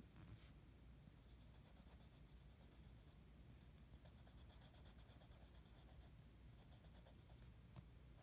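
Faint scratching of drawing strokes on paper, many short strokes coming in quick runs.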